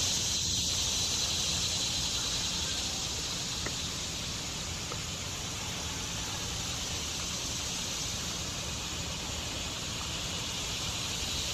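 Steady high-pitched drone of summer insects in the trees, an unbroken hiss with no pauses, over a faint low outdoor rumble.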